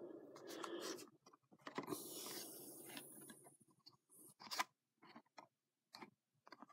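Faint handling of trading cards: scattered light taps and clicks as cards are set down and shifted on a play mat, with a brief rustling scrape about two seconds in.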